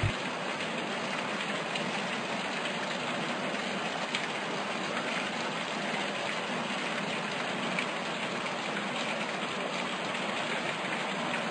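Water sprinkling steadily from above onto seedling net pots of cocopeat and rice-husk charcoal, wetting the growing medium after sowing.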